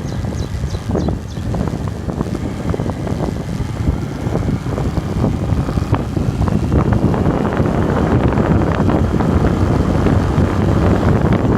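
Wind buffeting the microphone of a camera carried on a bike riding downhill, with scattered rattles and clicks. It grows louder about halfway through.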